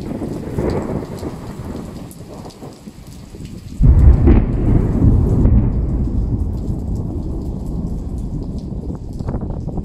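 Heavy rain falling, then about four seconds in a sudden thunderclap that breaks loud and rolls on as a deep rumble, slowly fading under the rain.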